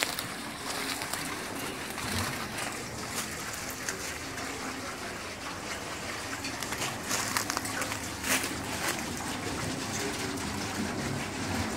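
Water falling and splashing steadily from a turning water wheel fed at its top, with a few short sharp clicks over the rush.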